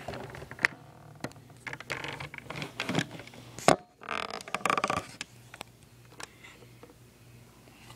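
Handling noises as a battery charger is picked up and worked with by hand: scattered clicks and scraping, rustling sounds, with a sharp click nearly four seconds in. It goes quieter after about five seconds, leaving only occasional light ticks.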